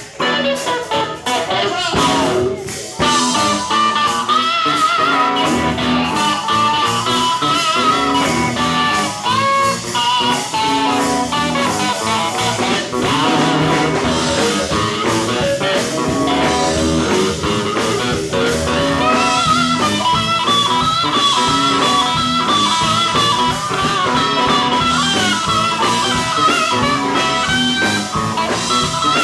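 Live sacred steel gospel band with a blues feel: a steel guitar plays sliding, bending lead lines over electric guitar and drums.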